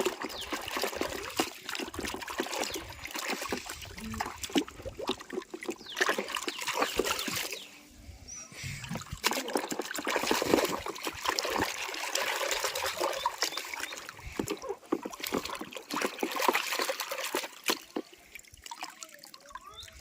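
Water trickling and splashing as toys are washed, in an irregular stream of small splashes with a short lull about eight seconds in.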